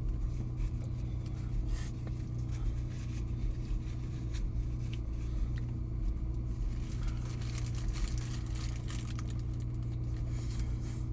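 Steady low engine hum, as heard inside a car, with scattered small clicks and rustles.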